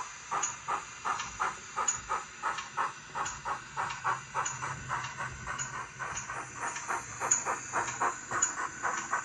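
DCC sound decoder in a Bachmann 94XX pannier tank OO gauge model playing steady steam exhaust chuffs, about four a second, with a hiss, through the locomotive's small onboard speakers as it runs along the track.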